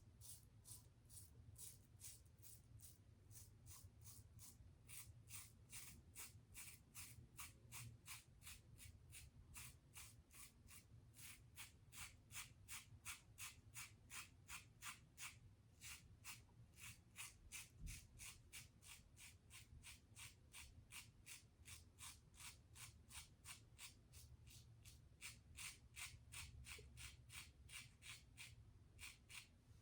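Faint, rapid short strokes of a Gillette Tech fat handle safety razor with a 3D-printed base plate scraping across stubble, about two to three strokes a second.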